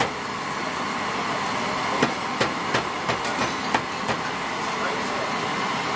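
Long döner knife shaving beef off a vertical spit, with a quick run of about seven sharp knife knocks and clicks a couple of seconds in, over a steady background hiss.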